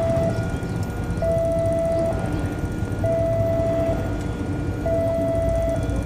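Railway level-crossing warning alarm sounding its electronic tone in regular pulses, each nearly a second long and repeating about every two seconds, signalling that the barriers are down for an approaching train. A low engine rumble runs underneath and grows louder near the end.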